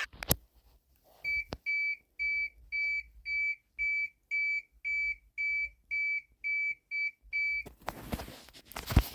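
Electronic alarm beeping: a dozen or so short, high, single-pitched beeps at about two per second, part of an emergency-alert style alarm sequence. A click comes just before the beeps start, and near the end they give way to a burst of static-like noise and a sharp thump.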